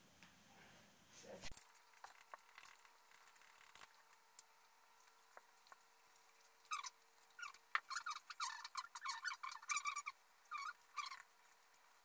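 A Labrador retriever panting quickly and softly, a run of short breaths several a second that starts about halfway through and stops near the end.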